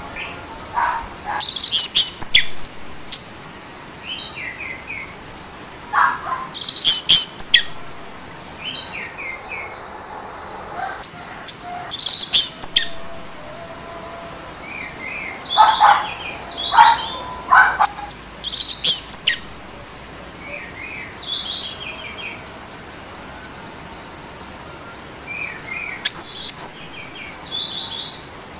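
Orange-headed thrush singing in loud bouts every few seconds, with harsh, rasping phrases mixed with softer whistled notes. A longer pause comes before a last bout near the end.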